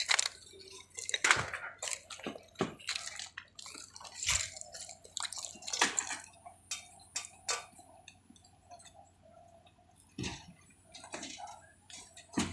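Wet concrete sloshing and splattering during a slab pour: irregular splashes and knocks, over a faint steady hum.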